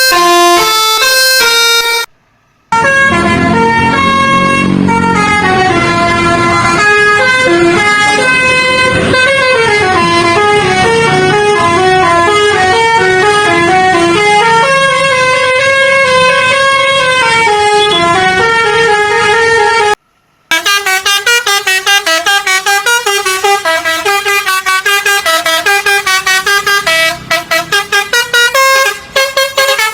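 A bus's 'basuri' telolet musical air horn playing tunes in held, stepped notes. There are short breaks about two seconds in and about twenty seconds in. After the second break the notes come faster and choppier.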